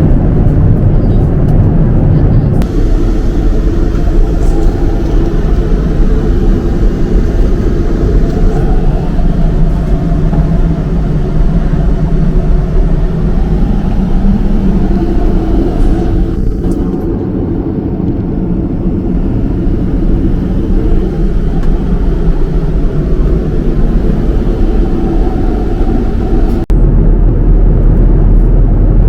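Boeing 787-9 airliner cabin noise in flight: a loud, steady rumble of engines and airflow with a low hum. The sound changes abruptly about two and a half seconds in and again near the end.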